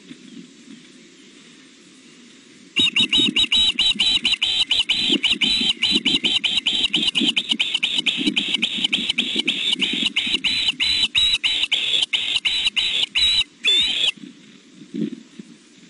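Juvenile osprey food calling: a loud, rapid series of sharp chirps, about four a second, starting a few seconds in and ending with one longer call about 14 seconds in, over a low steady rumble.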